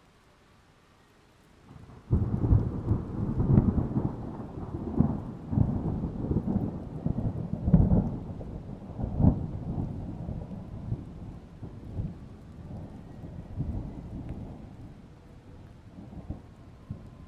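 A thunderclap about two seconds in: a sudden low rumble with crackling peaks that rolls on and slowly dies away.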